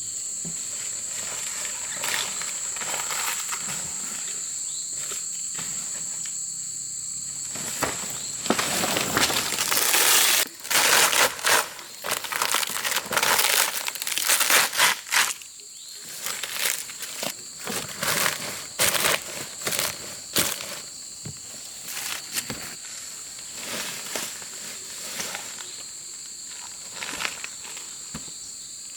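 Steady high-pitched insect drone with crackling and rustling of leaves and twigs; about a third of the way in comes a louder, busier stretch of rustling lasting several seconds.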